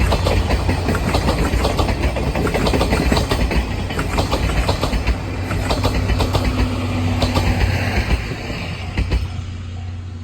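A train of 12-series passenger coaches rolling past, wheels clicking rapidly over the rail joints over a steady low hum. The noise fades away near the end, and a level-crossing bell ringing at an even beat comes through.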